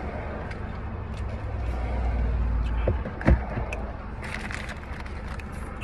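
Idling car engine and air-conditioning fan as a steady low rumble inside the cabin. A single sharp thump comes about three seconds in, and a short burst of crinkling near the end.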